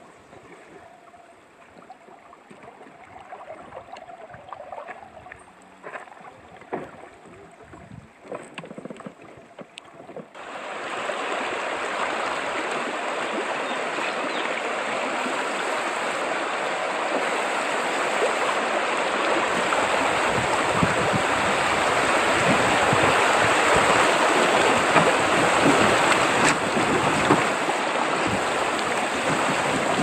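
Calm river water, quiet, with a few faint knocks for about ten seconds. Then a loud, steady rush of shallow river rapids running over stones around a bamboo raft starts suddenly and continues.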